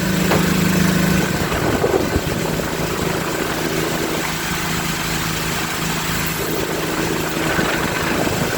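Portable generator on a mobile tire-service truck running steadily, an even mechanical hum.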